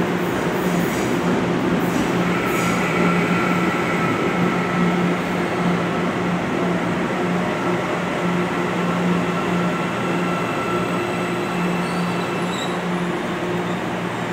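CPTM series 9500 electric multiple-unit train rolling slowly along the platform as it pulls in, with a steady low hum and a faint high whine under the running noise of the wheels.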